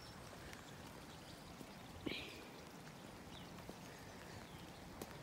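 Faint, steady hiss of rain falling, with one brief higher sound about two seconds in and a faint click near the end.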